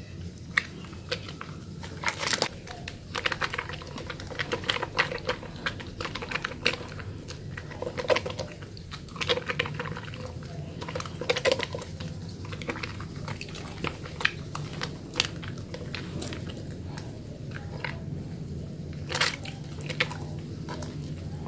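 Wet bar of soap being lathered: irregular wet squelches and crackling clicks of soap and foam, over a steady low hum.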